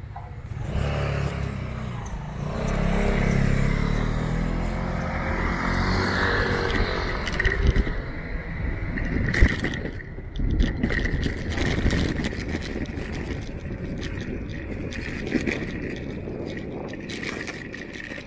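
A motor vehicle passing close by: its engine note swells to a peak a few seconds in and then fades away. Irregular scraping and clicking noises follow.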